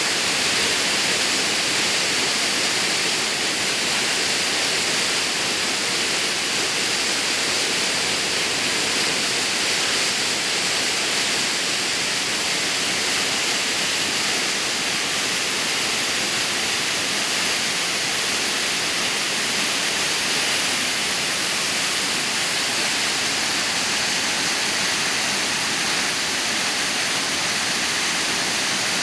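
Waterfall: a steady, hissing rush of falling water.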